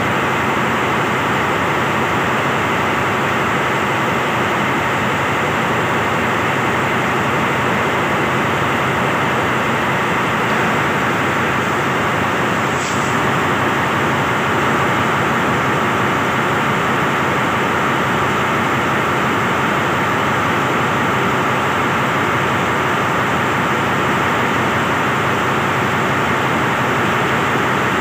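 Steady hiss of heavy rain mixed with a passenger train's coaches rolling slowly past, with no clear wheel beat.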